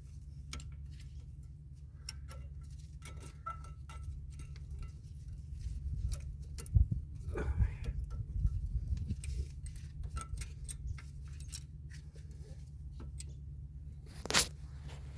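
Light metallic clicks and taps of brake pads and their clips being handled and fitted into a disc-brake caliper bracket, with a louder knock about seven seconds in and a sharp click near the end, over a steady low hum.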